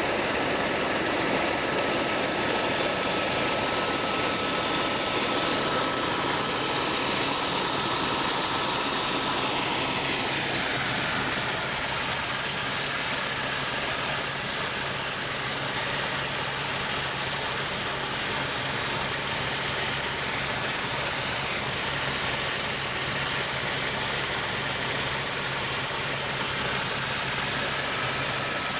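Aircraft engine drone heard from inside the cabin during a sightseeing flight: a loud, steady noise with a low hum, and a whining tone that falls in pitch about ten seconds in.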